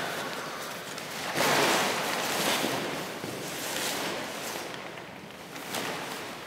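Paper costume rustling and crinkling as the dancer moves in it. It swells loudest about a second and a half in, then fades with a few small crackles.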